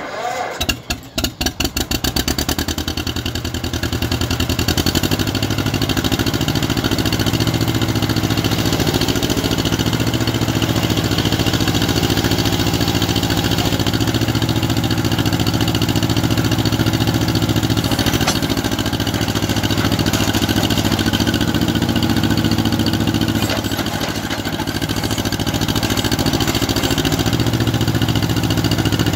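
John Deere MC crawler tractor's two-cylinder engine starting: it fires at once, the beats quicken over the first couple of seconds, and then it runs steadily. It drops briefly in speed about 24 seconds in.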